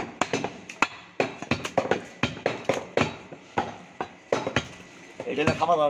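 Butcher's cleaver chopping beef on a wooden log chopping block: a rapid, uneven run of sharp chops, about two to four a second. A voice is heard briefly near the end.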